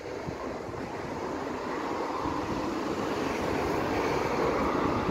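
Steady rumble of an approaching vehicle, growing louder.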